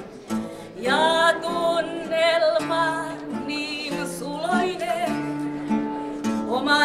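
A woman singing into a microphone with vibrato, over instrumental accompaniment holding steady lower notes.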